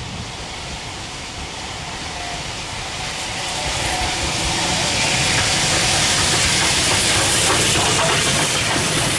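A Bulleid Battle of Britain class three-cylinder Pacific steam locomotive, No. 34081 "92 Squadron", approaches and passes close by with its train. The sound builds over the first few seconds into a steady, loud rush of steam and of wheels running on the rails.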